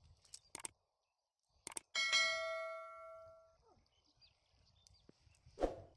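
Clicks followed by a bell-like notification ding with several steady pitches that rings for about a second and a half and cuts off abruptly. It is the sound effect laid under an on-screen subscribe-button overlay. A short thump comes near the end.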